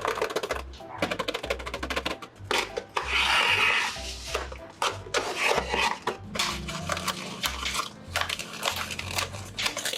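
Stiff paper crinkling and rustling in quick, dense crackles, over background music with a steady low beat.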